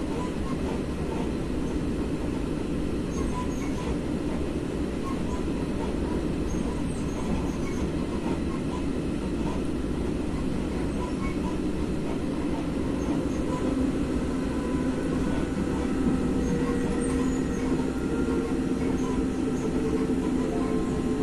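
ALe642 electric multiple unit running along the line, heard from inside the carriage: a steady rumble of wheels on rails. A steady whine comes in about two-thirds of the way through and holds to the end.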